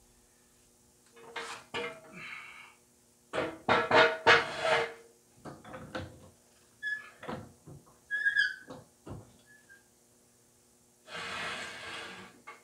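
Tools clanking and knocking against the metal fasteners and body panels of a 1999 Chevrolet Lumina as a fender is unbolted, in short irregular bursts, loudest about four seconds in. A few short high squeaks come about eight seconds in, and a rushing noise lasting about a second comes near the end.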